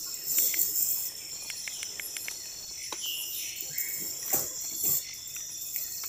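A steady high-pitched chorus of night insects, crickets among them, with a few light clicks and a couple of brief rustles in the second half.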